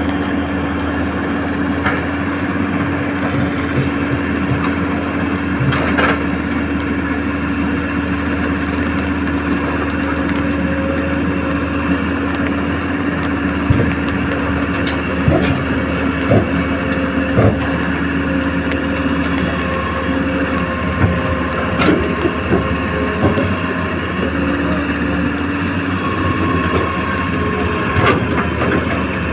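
Radio-controlled model excavator and dump truck working: a steady motor hum holding one pitch, with scattered clicks and knocks. A higher tone joins in over the last third.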